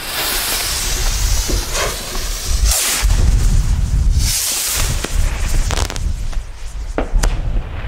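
A firework fuse fizzing, then small firework rockets launching with a rushing whoosh, then two sharp pops close together near the end: plop rockets that burst with only a small report. A loud low rumble runs underneath.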